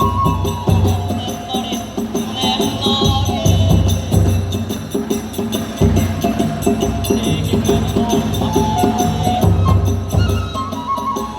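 Kagura hayashi music: a bamboo flute playing a stepping melody over a fast, steady beat of taiko drums and small hand cymbals.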